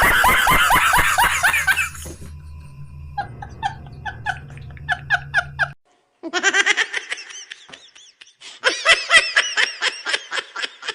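High-pitched laughter in quick rhythmic bursts, loudest in the first two seconds, breaking off briefly about six seconds in, then starting up again and growing louder near the end.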